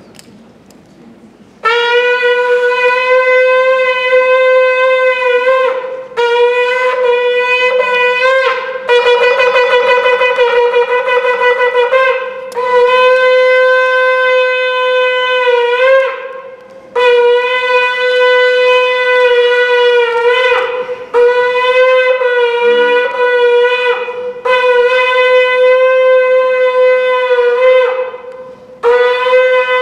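Shofar blown in a series of long, loud blasts at one steady pitch, each a few seconds long with short breaks between them; one blast a few seconds in wavers rapidly.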